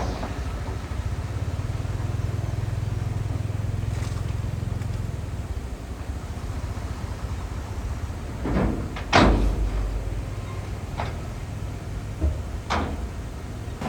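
Heavy diesel earthmoving machinery running with a steady low engine drone, broken by a few sharp metallic bangs; the loudest comes about nine seconds in, followed by three lighter knocks.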